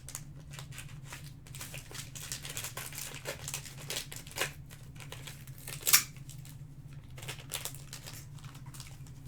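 Trading-card pack wrappers crinkling and cards being handled, a run of small clicks and rustles with one sharper click about six seconds in, over a steady low hum.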